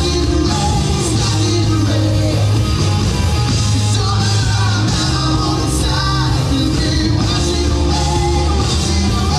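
Live rock band playing: electric guitars, bass and drums under a male lead vocal, recorded from among the audience.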